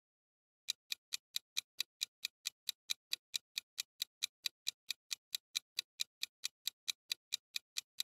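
Clock-ticking sound effect of a quiz countdown timer, steady even ticks about four to five a second, starting about a second in: the answer time running down.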